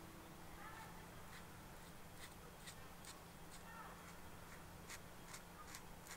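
Near silence, broken by a few faint small clicks and taps of hobby tools on plastic model parts, mostly in the second half.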